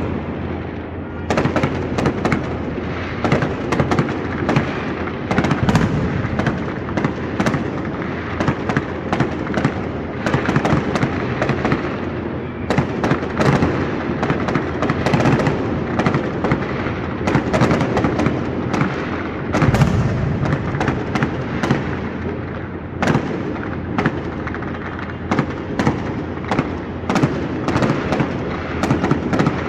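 Many fireworks going off across a city: a continuous, dense run of bangs and crackling pops that starts about a second in.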